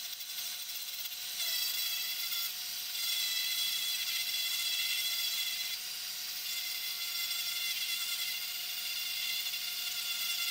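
Handheld rotary tool with a small sanding drum running at high speed with a steady whine, sanding down a small wooden intarsia piece. The sound grows louder in several passes as the drum bears on the wood, with the tool running on between them.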